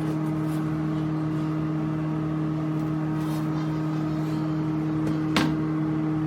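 Steady low hum, with one sharp click about five and a half seconds in.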